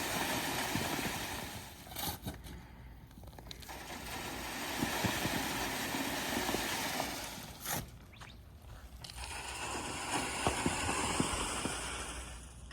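Clay being sifted through a screen: a gritty scraping and crackling that swells and fades in three long spells, with a brief knock between the spells.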